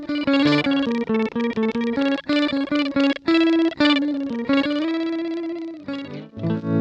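Electric guitar played through an FPGA multi-effect processor's octavolo effect, which layers pitch-shifted copies over the guitar signal. It plays a quick run of single notes, then a held note that fades out about five to six seconds in, and a new passage starts near the end.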